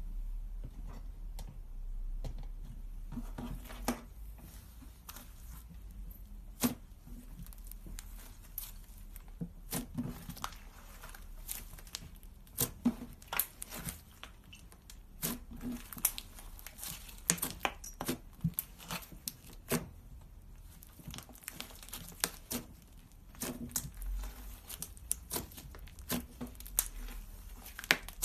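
Slime being stretched, pulled and squeezed by hand, making irregular sticky clicks and small pops, more frequent in the second half.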